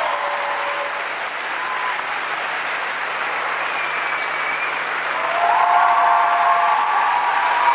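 Large arena crowd applauding steadily, swelling louder with cheering voices about five seconds in.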